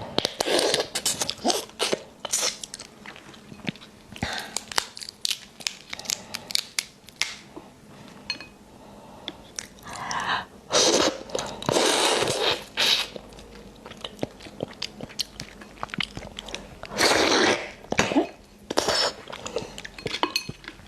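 Close-up eating of raw marinated crab: crunching and chewing on shell and flesh, full of sharp clicks, with a few longer noisy bursts about halfway through and again near the end.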